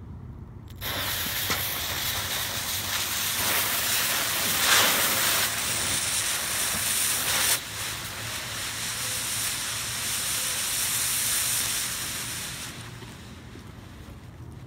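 Two ball-type smoke bombs hissing as they vent smoke. The hiss starts about a second in, drops a little about halfway through, and dies away near the end.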